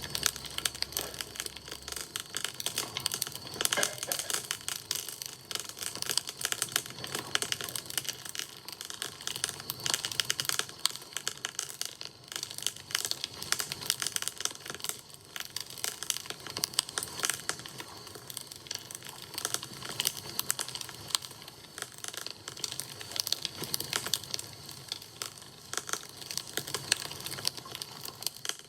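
Wood bonfire crackling: a dense, irregular run of small snaps and pops.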